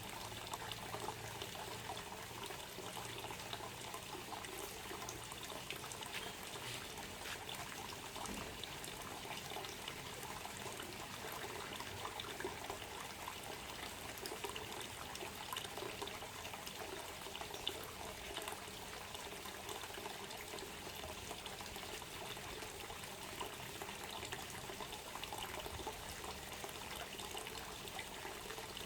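Water trickling and splashing steadily, a continuous light pouring with small splashes throughout.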